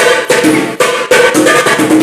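Funk carioca track playing loud: a fast, driving percussion beat with sharp, evenly repeating hits under a short repeating melodic figure.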